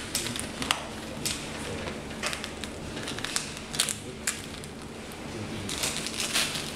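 Hard plastic clicks and knocks as a Stormtrooper costume's thermal detonator prop is pressed and fitted onto the armour belt, with a scraping rub near the end.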